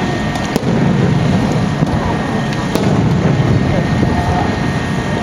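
Aerial firework shells bursting: a continuous low rumble of reports and their echoes, with a couple of sharp cracks. Voices murmur faintly in the background.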